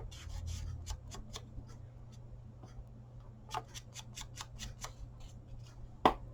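Ink pad dabbed and tapped against a paper tag to ink its edges: a string of faint, irregular light taps and clicks, with a sharper tap near the end.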